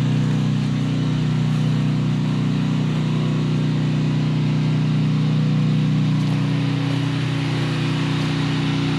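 Portable gasoline generator running steadily with no load, a constant even engine hum.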